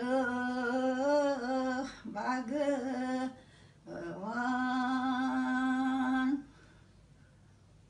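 An elderly woman singing a traditional Kashmiri song unaccompanied, in three long drawn-out phrases held on a steady pitch; the last phrase stops about six and a half seconds in.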